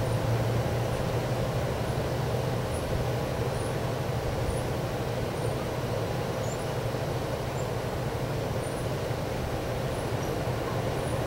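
Strong wind blowing steadily at night, a continuous low rush with no gusts dying away.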